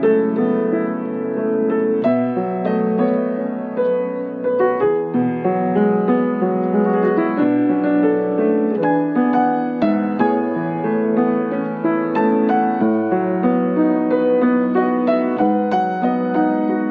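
Background piano music: a gentle, slow piano piece with many sustained notes.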